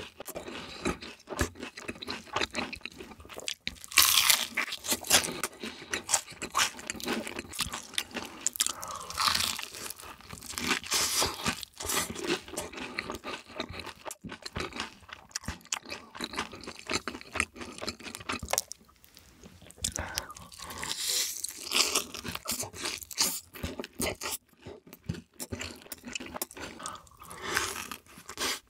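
Close-miked eating: crunching of crispy fried chicken and chewing with a full mouth, with several louder bursts of crunching between steadier chewing.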